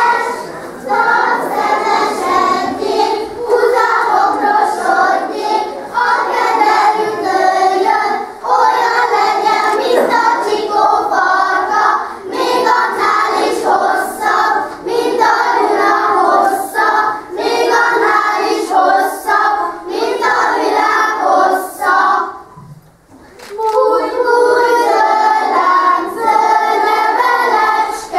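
A group of young children singing a Hungarian folk song together as part of the kiszehajtás custom, in short sung phrases. The singing breaks off for about a second near the end, then starts again.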